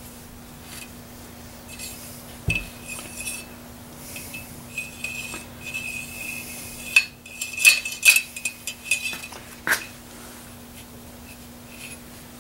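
Cleaning rod pushing a patch through a Ruger 10/22's barrel: metal scraping and clinking with a few sharp knocks from about two seconds in until near ten seconds, over a steady low hum.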